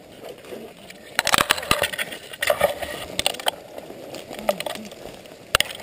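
Footsteps crunching through dry leaves and brush, with twigs cracking and branches scraping past in irregular clusters.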